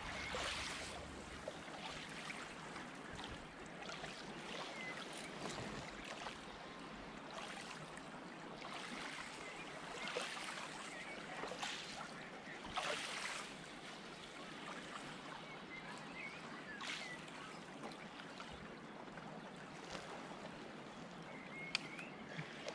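Small waves lapping at the loch shore: a soft, steady wash with an occasional louder lap every few seconds, and a single sharp click near the end.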